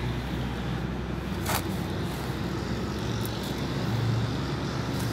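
Steady low background rumble with a short scratchy scrape about a second and a half in, as a hand works manure and compost into the soil of a terracotta pot.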